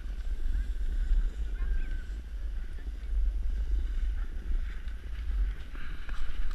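Wind rumbling on the microphone while riding a snowboard downhill, with the board sliding and scraping over packed, tracked snow.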